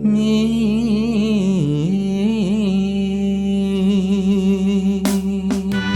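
Slow jazz music: a long held melodic line that bends up and down in pitch over a sustained low chord, with a few sharp drum hits near the end.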